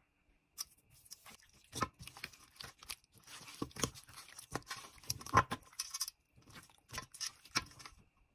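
Hand rubbing and squeezing raw chicken coated in salt and food colouring: an irregular run of wet, sticky rubbing with sharp slaps and smacks of skin on skin. It starts about half a second in and stops just before the end.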